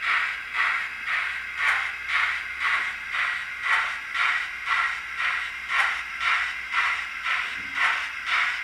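Sound decoder in a Hornby model of the Lord Nelson class 4-6-0 steam locomotive, playing through its small 28 mm speaker the exhaust recorded from the preserved Lord Nelson. It gives a steady, even beat of about two hissing chuffs a second, from the class's correct eight-beats-per-revolution exhaust.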